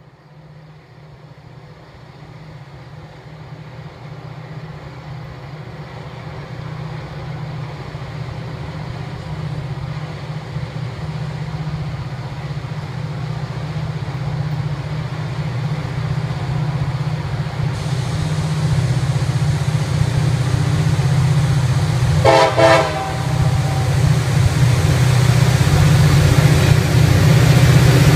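Approaching freight train led by EMD SD40-3 and GP40-3 diesel locomotives, the engines' low rumble growing steadily louder as they near. A short horn blast sounds about three-quarters of the way through.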